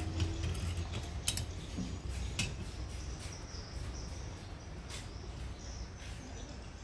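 Metal ratchet tie-down buckle clicking a few separate times as it is handled and its handle opened, over a steady low hum.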